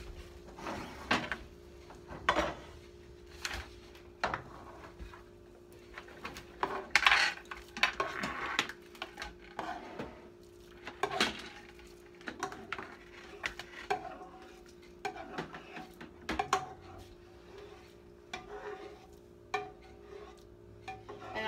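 A cooking utensil scraping and clinking against a skillet and a cooking pot as cooked shrimp are spooned from the pan into a pot of pesto tortellini and stirred in, with irregular knocks and clanks throughout.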